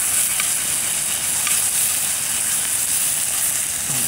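Chops, sausages and mushrooms frying over a campfire: a steady, loud sizzle with a few faint pops.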